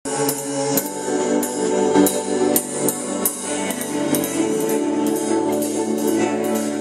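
A live band playing: sustained chords with a steady percussion beat, a little under two hits a second.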